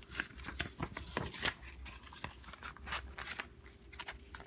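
Pages of a handmade paper notebook being turned and pressed flat by hand: an irregular run of short paper rustles, crinkles and light taps.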